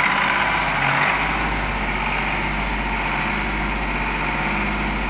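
SAME Commando tractor's diesel engine running steadily as the tractor is driven slowly, a little louder in the first second.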